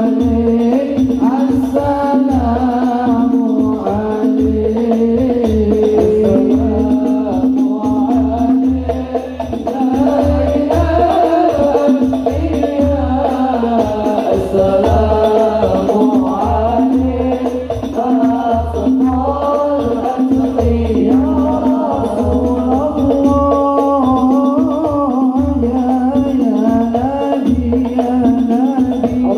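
Sholawat sung by a group of men, a lead voice on a microphone with the others joining, over a steady beat of frame drums (rebana).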